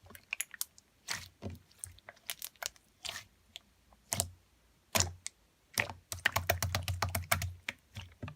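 Clear slime being squished and pressed by hand, giving sharp sticky clicks and pops, with a fast, dense run of clicks for about a second and a half in the last third.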